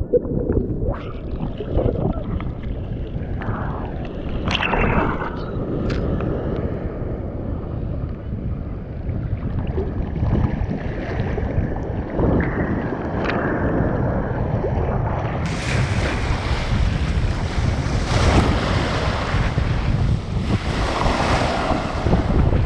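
Ocean surf breaking and churning around a camera held at the waterline, water sloshing and splashing over the microphone. Muffled at first, with a couple of sharp splashes in the first few seconds, then brighter and clearer from about two-thirds of the way through.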